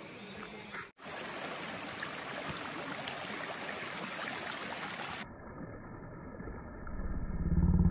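Shallow rocky stream running, a steady rush of water that turns muffled after about five seconds. Near the end a louder low hum comes in.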